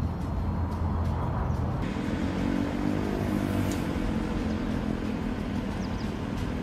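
A motor vehicle's engine running close by in outdoor street noise. Its drone swells from about two seconds in and eases off again near the end.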